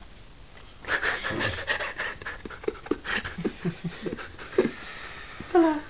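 People stifling laughter: a string of short, breathy, panting giggles starting about a second in, with a falling laugh near the end.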